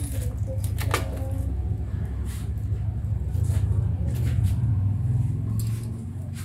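Loose hedgehog-cage bedding being scooped by hand from a plastic crate into a cardboard box, heard as a few short rustles and scrapes over a steady low hum.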